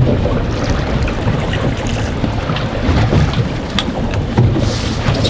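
Heavy wind buffeting the microphone as a dense low rumble, with water sloshing and a few small knocks on the boat.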